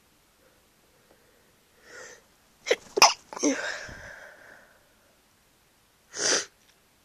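A person with a cold sneezing. A breath in about two seconds in is followed by a loud sneeze in two sharp bursts with a trailing exhale. A second, shorter burst comes near the end.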